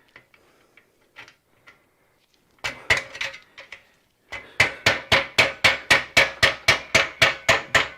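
Hammer blows on a hand impact driver, trying to break loose a seized, rusty exhaust bolt: a few light taps, then from about halfway a steady run of sharp metal strikes at about four a second.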